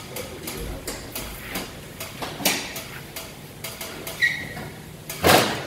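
Clicks and knocks of a bent vintage motorcycle handlebar being worked straight by hand, with a brief squeak about four seconds in and a loud clunk near the end.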